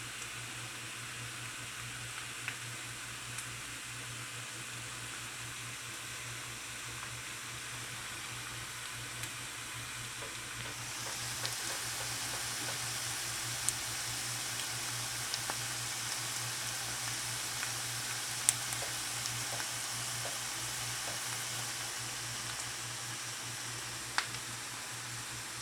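Potatoes and ground meat sizzling in a frying pan, the sizzle getting louder about eleven seconds in, with scattered clicks of a spatula against the pan and a steady low hum underneath.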